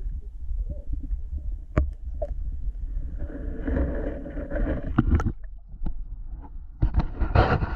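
Muffled underwater rumble and knocks of a waterproof action camera submerged in a lake, then water splashing and knocking as the camera is lifted out of the water in the second half.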